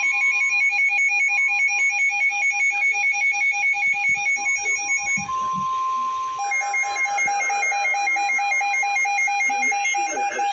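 Weather radio warning alert: rapid pulsing two-tone alarm beeps over a steady single-pitch warning alarm tone. The beeping drops out for about a second just after the middle, leaving the steady tone alone, and then resumes.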